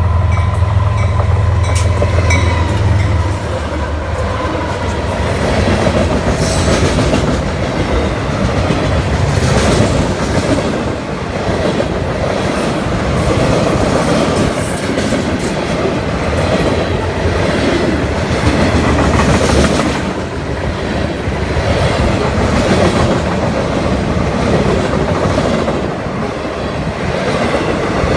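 CSX manifest freight train rolling past at track side: a steady rumble with the clickety-clack of wheels over rail joints. A low drone drops away about three seconds in, leaving the rumble and clatter of the passing cars.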